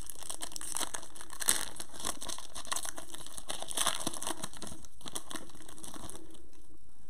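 Foil wrapper of a Prizm basketball card pack being torn open and crinkled by hands in thin plastic gloves, crackling on and off. It stops about six seconds in.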